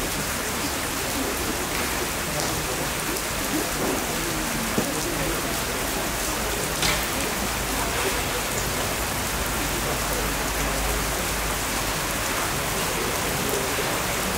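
Steady rain falling, an even hiss, with a couple of brief sharp clicks about five and seven seconds in.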